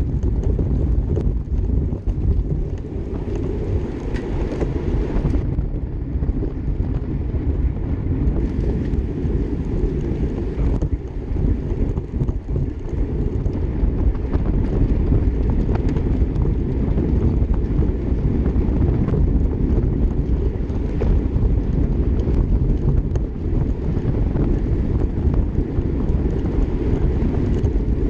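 Wind buffeting the microphone of a camera riding on a moving bicycle: a steady, loud low rumble.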